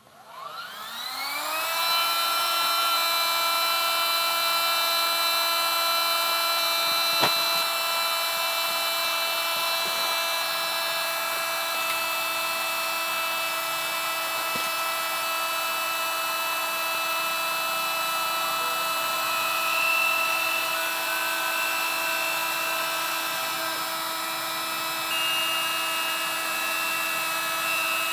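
Portable electric air pump switched on, spinning up over about two seconds to a steady motor whine. It runs continuously, blowing air through a hose into an air mattress. One short click about seven seconds in.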